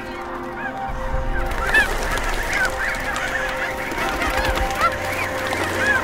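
A large flock of birds calling, with many short calls overlapping, growing denser and louder about a second in.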